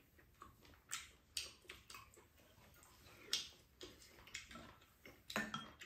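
Chopsticks and spoons clicking and tapping against bowls while eating, with faint chewing: a handful of short, sharp clicks at uneven intervals.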